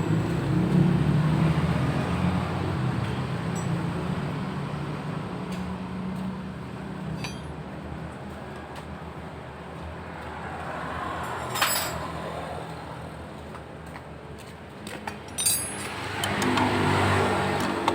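Honda Beat scooter engine running, its speed easing down and then rising again near the end, with a couple of sharp metallic clinks. The engine is being checked for a jingling rattle from the engine and CVT area.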